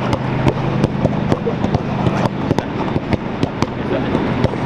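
Footballs being kicked and controlled on artificial turf: a quick, irregular run of sharp thuds from passes and first touches, over a steady low hum.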